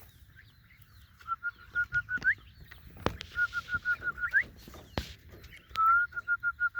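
A chicken calling in three bouts, each a quick run of about seven short, clear notes ending in a higher rising note, like a hen's cackle.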